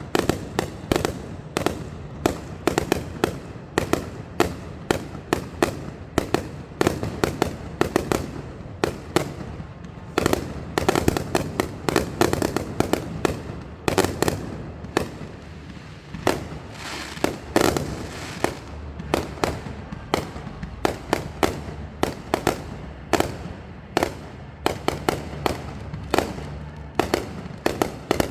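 Many fireworks going off in rapid succession, sharp bangs and pops several a second, with denser rolling barrages in places.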